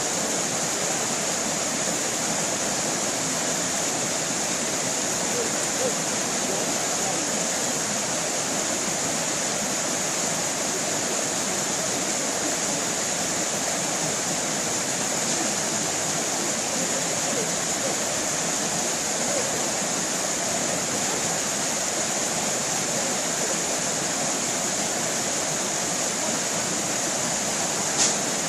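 Stream water running and splashing in a steady, unbroken rush. A short click comes near the end.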